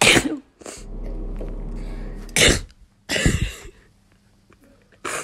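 A person sneezing several times in quick succession: a sharp sneeze at the start, two more about two and three seconds in, and a short one near the end. A steady low hum sounds for about a second and a half between the first two sneezes.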